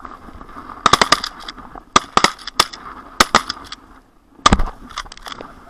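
Volley of shotgun fire from several guns in the blind: many sharp shots in quick succession, some overlapping, in three or four clusters.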